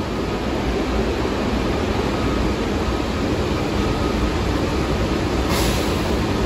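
R62A New York City subway car at the platform, giving off a steady mechanical rumble and hum, with a brief hiss about five and a half seconds in.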